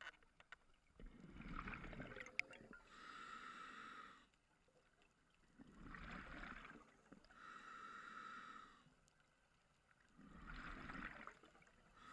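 Scuba diver breathing through a regulator underwater, a breath about every four and a half seconds: each cycle has a bubbling, gurgling exhalation followed by the hiss of air drawn through the regulator's second stage, with short pauses between. A single sharp click sounds about two and a half seconds in.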